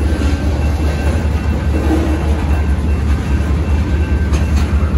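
Freight cars of a mixed manifest train, tank cars and boxcars, rolling past at a grade crossing: a steady heavy rumble of steel wheels on rail, with a few faint clicks near the end.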